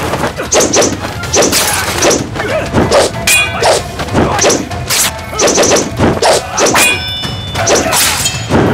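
Martial-arts fight sound effects: a quick run of whacks and hits, about two a second, some with a short metallic ring, over background music.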